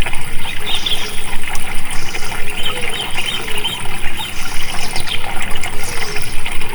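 Flowing water rushing and gurgling steadily, with a loud, continuous, unbroken sound.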